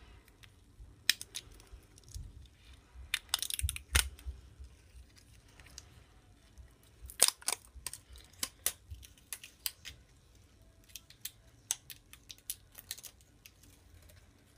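Scattered light clicks, taps and rustles of hands handling small scrapbooking supplies, starting with a roll of washi tape. The sounds come irregularly and thin out in the second half.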